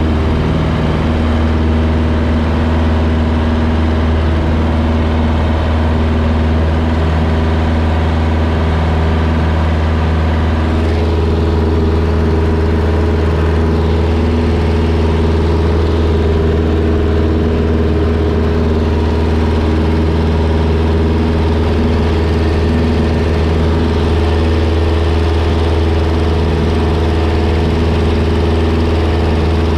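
1946 Cessna 140's four-cylinder air-cooled engine and propeller at takeoff power, heard from inside the cockpit: a loud, steady drone through the takeoff roll and climb-out. The drone's tone changes slightly about eleven seconds in.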